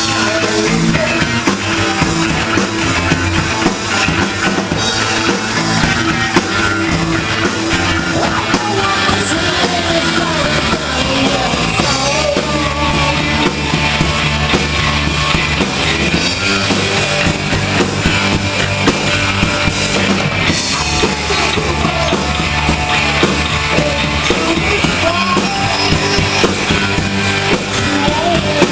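A rock band playing live, with drum kit, guitars and bass, loud and continuous.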